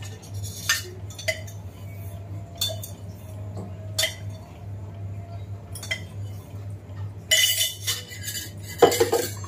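Steel kitchenware clinking and clattering as a small steel container and a pan are handled at a stove: scattered sharp clinks, then two louder clattering rattles near the end, over a steady low hum.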